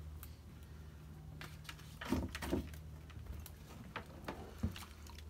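Scattered knocks, clicks and rattles of a caught fish and fishing tackle being handled at a boat's gunwale, with a cluster of knocks about two seconds in and a sharp knock near the end, over a steady low hum.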